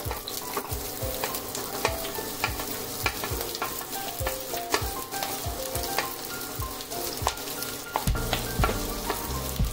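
Diced onions sizzling as they drop into hot oil in a nonstick pan, with repeated clicks and taps of a spatula pushing them off a plate.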